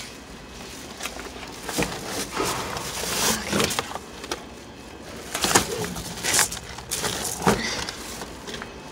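Rummaging through trash inside a dumpster: plastic garbage bags crinkling and rustling, with irregular knocks and thuds from cardboard boxes and other items being shifted. The sharpest knocks come a little past the middle.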